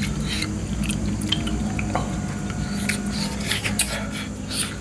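Mouth sounds of a person eating spicy chicken feet: scattered short smacks and clicks of biting and chewing, over a steady low hum.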